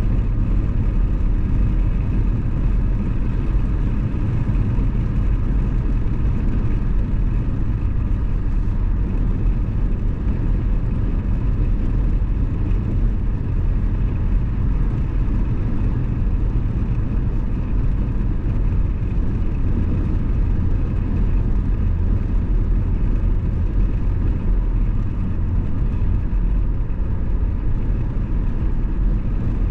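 Car driving at a steady speed: a steady low rumble of engine and road noise, with a faint steady whine above it.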